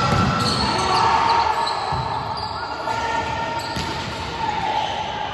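Volleyball rally in a large, echoing sports hall: several sharp knocks as the ball is struck and hits the wooden floor, with players' voices in the background.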